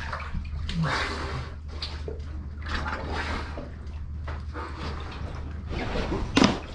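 Water splashing and sloshing as a diver ducks under and resurfaces in the sea under a fishing raft, over a steady low hum. Near the end there is one sharp clatter, the loudest sound, as green mussels are dropped into a basin.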